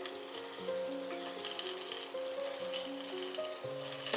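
Coconut-milk solids sizzling in their own freshly separated oil in a wok, the stage where the virgin coconut oil has cooked out. Background music with long held notes plays over the sizzle.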